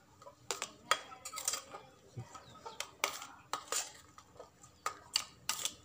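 Metal spoon clinking and scraping against a metal bowl while a wet bait mix of wasp larvae and egg white is stirred, in irregular clicks, about two a second.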